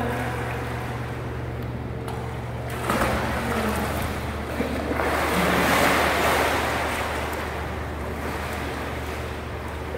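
Water splashing and sloshing as swimmers move through a swimming pool, over a steady low hum. The splashing swells about five seconds in and eases off again.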